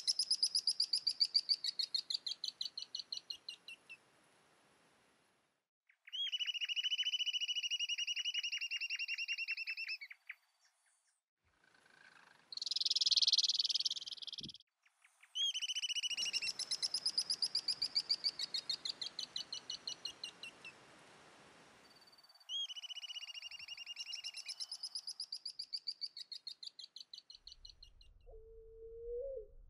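Several birds singing in turn: rapid trills that slide down in pitch, a steady trill held for about four seconds, and a short harsh burst about halfway through. A low call starts near the end.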